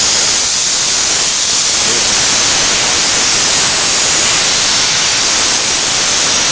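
Steam cleaner's wand jetting steam in a loud, steady hiss.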